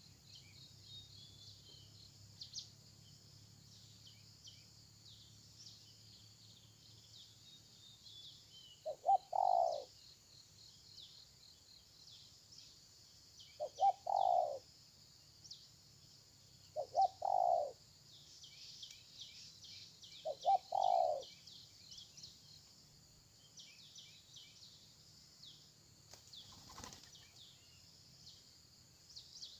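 Spotted dove cooing four times a few seconds apart, each call a short note run into a longer coo. High, fast chirping runs behind it, and there is a single sharp knock near the end.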